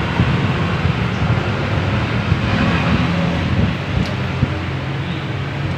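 A steady mechanical hum with an even rush of noise over it, and one light click about four seconds in.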